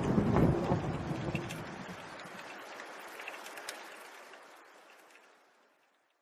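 Rain falling, with the tail of a thunder rumble at the start. The whole sound fades out steadily and stops about five and a half seconds in.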